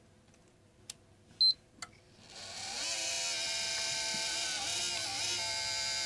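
A single short, high beep as the PS4 is switched on, then about two seconds in the Nyko Intercooler's cooling fans spin up into a steady whir with a wavering, multi-toned whine: the grinding noise that the owner takes for a defective unit.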